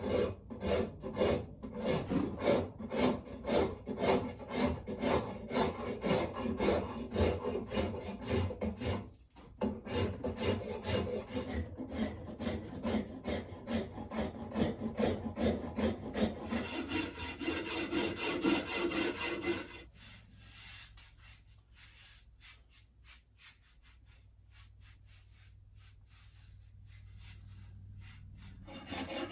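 A coarse file rasping back and forth across a hickory axe handle in rapid, even strokes, roughing the bulk of the wood off to thin the handle. The strokes pause briefly about nine seconds in and turn much fainter for a stretch after about twenty seconds.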